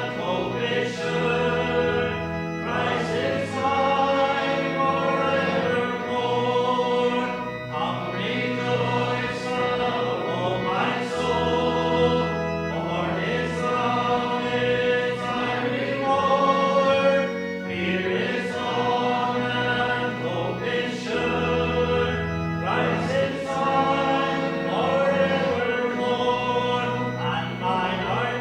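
A hymn sung by many voices in harmony with instrumental accompaniment, held chords changing every second or two over sustained bass notes.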